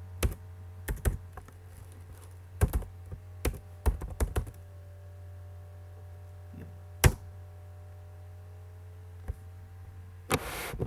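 Computer keyboard being typed on: scattered key clicks over the first four seconds or so, then a single loud keystroke about seven seconds in. A steady low hum runs underneath.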